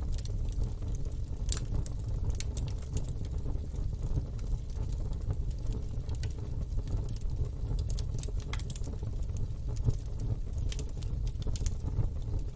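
Wood fire burning in a fire pit: a steady low rush of flame with scattered sharp crackles and pops from the burning wood, one of the strongest about a second and a half in.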